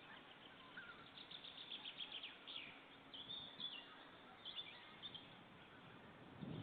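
Faint bird calls: a quick series of short high chirps about a second in, then a few brief whistled notes and chirps, over a quiet background hiss.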